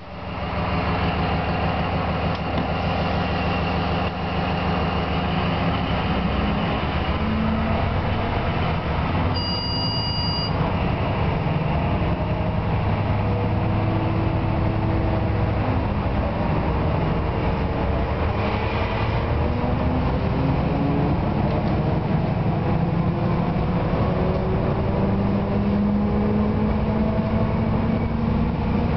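Class 750.7 diesel locomotive's Caterpillar V12 diesel engine running under load, its engine speed shifting and rising gradually through the second half. A short high two-tone beep sounds about ten seconds in.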